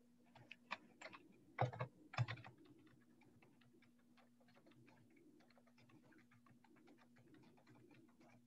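Typing on a computer keyboard: a quick run of key clicks, with a few louder strokes in the first two or three seconds, then lighter, steady typing.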